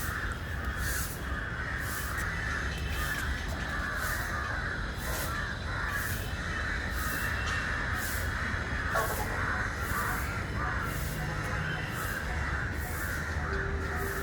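Many birds calling at once in a dense, continuous chatter, with crow-like cawing and short high calls repeating about once a second.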